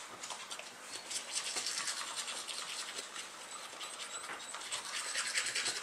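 Manual toothbrushes scrubbing teeth with a quick back-and-forth stroke, a wet, scratchy bristle sound.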